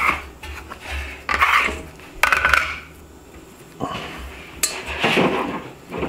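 Wet bread dough being handled and set into a metal loaf pan on a wooden counter: a few short bursts of rustling and scraping, with the pan clanking against the counter and a sharp click a little past the middle.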